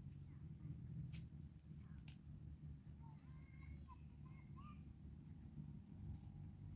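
Faint insect chirping, a steady train of short high chirps about two to three a second, with a few soft bird calls in the middle and two sharp clicks about one and two seconds in.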